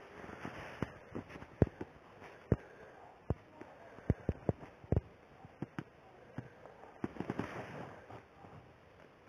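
Irregular sharp pops and crackles, about twenty scattered unevenly over a faint hiss.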